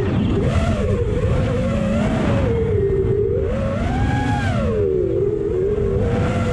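FPV racing drone's electric motors whining, the pitch rising and falling with the throttle, over a heavy rumble of wind on the microphone.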